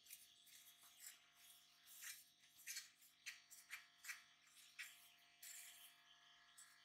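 Faint swishing of a hand rubbing cooking oil over a metal pizza pan, about ten short irregular strokes.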